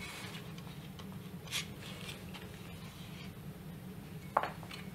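Faint light rustles of hands handling stitching thread, with a steady low hum underneath; a single sharper click about four and a half seconds in.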